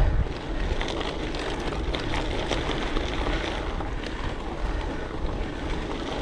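Gravel bike rolling over loose gravel: tyres crunching and rattling over stones, with many small clicks. Wind buffets the microphone, adding a steady low rumble.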